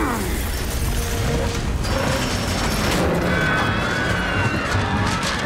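Film action soundtrack: loud crashing and rattling sound effects under a music score, with held notes and a stepping bass line coming in about halfway through.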